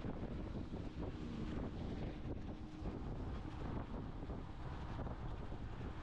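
Wind buffeting the microphone: a steady low rumble with no clear events.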